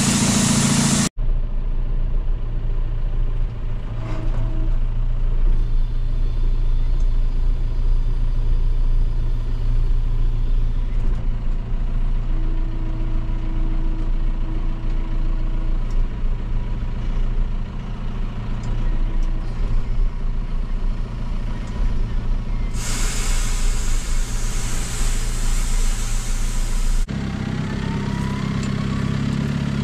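Heavy truck engine running steadily, with several seconds of loud hissing air near the end.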